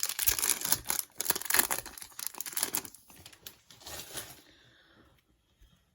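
Foil trading-card pack wrapper being torn open and crinkled, a dense crackling for about three seconds that tapers off about four seconds in.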